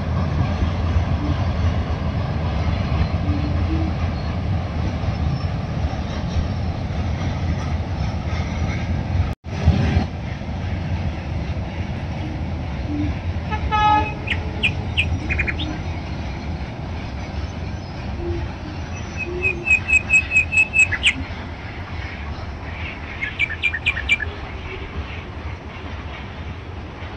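A train crossing a steel truss railway bridge, a steady low rumble. After a sudden break about nine seconds in, the rumble goes on more quietly while birds chirp in short, rapid runs of notes.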